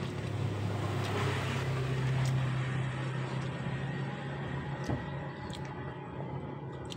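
A motor vehicle's engine hum that swells to its loudest about two seconds in, then fades away about halfway through, with a few light clicks.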